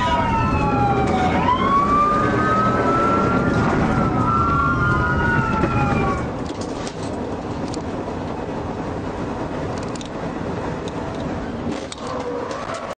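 Police sirens sounding, several overlapping pitches sliding up and down, for about the first six seconds, then giving way to a steady rumble of vehicle and road noise.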